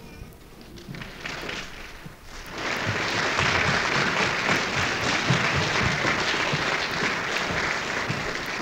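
Audience applause after a song ends: a few scattered claps at first, swelling into full applause about two and a half seconds in.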